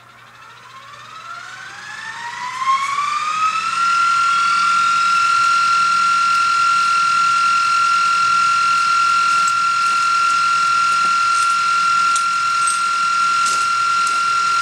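A motor spins up with a high whine that rises in pitch for about four seconds, then runs loud and steady at one pitch, with a few faint clicks near the end.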